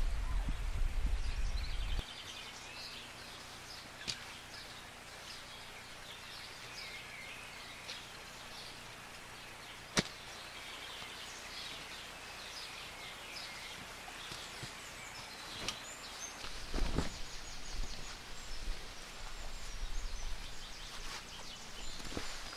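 Outdoor ambience with birds chirping in many short, high calls. A low rumble cuts off abruptly about two seconds in and comes back briefly around seventeen seconds in, and a single sharp click falls near the middle.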